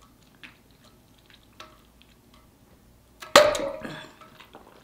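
Drinking through a water bottle's straw: quiet sips with a few soft clicks, then a sudden loud mouth sound a little over three seconds in that fades within about half a second.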